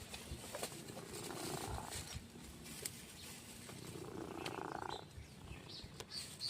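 A cat snoring in its sleep: two slow, rasping breaths about three seconds apart.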